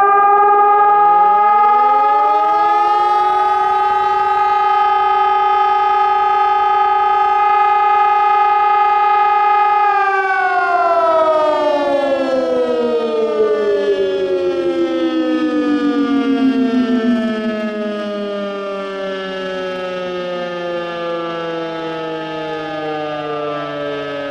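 Two civil-defence sirens sound together for a siren test: a Hörmann ECI 1200 electronic siren and an old East German DS977 motor siren. Their loud, steady tones hold for about ten seconds, then fall in pitch. One drops quickly while the other winds down slowly, and the sound steps quieter near the end.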